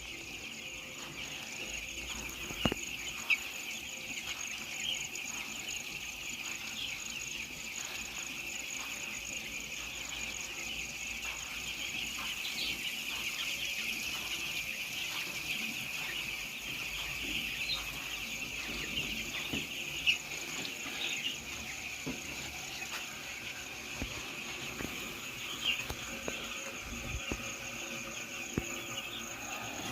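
Dense, continuous chorus of high peeping from a large flock of week-old chicks, with a few sharp clicks.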